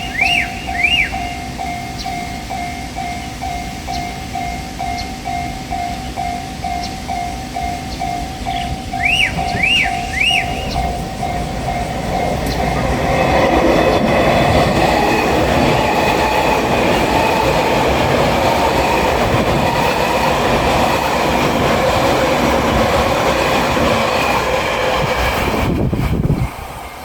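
Level crossing warning bell ringing about twice a second, then a JR Shikoku 8000 series electric limited express passes through the crossing. About twelve seconds in, loud wheel-and-rail noise with clickety-clack takes over and runs for about fourteen seconds, then cuts off suddenly near the end.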